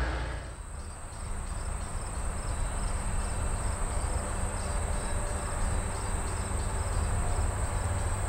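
Insects chirring in the grass: a steady high buzz with a softer pulsed chirp repeating about twice a second, over a steady low rumble.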